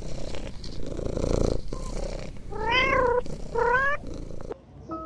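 A domestic cat purring for the first second and a half, then meowing twice, each call rising and falling in pitch.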